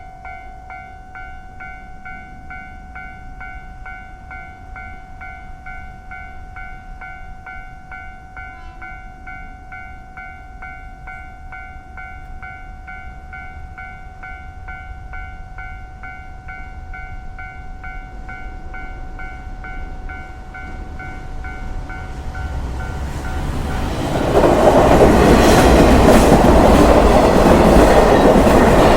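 Train approaching and passing close: a steady high tone holds over a low rumble that slowly grows. About 24 seconds in, the train reaches the listener and a loud rush of wheel and carriage noise with clatter takes over.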